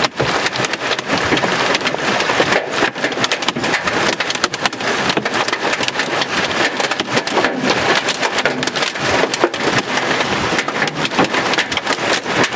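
Hail pelting down with rain in a dense, continuous clatter of sharp impacts.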